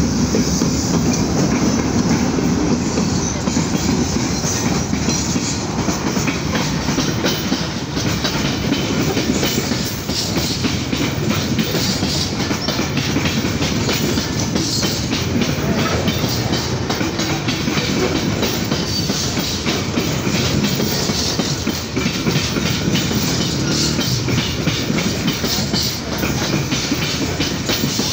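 AGE-30 diesel-electric locomotive passing close by, its engine loudest in the first few seconds, then the coal train's freight wagons rolling past with a steady clickety-clack of wheels over the rail joints.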